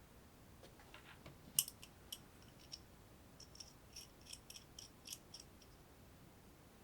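A run of small, sharp clicks and ticks at an uneven pace. The loudest is about one and a half seconds in, and a quicker string of lighter clicks follows near the middle.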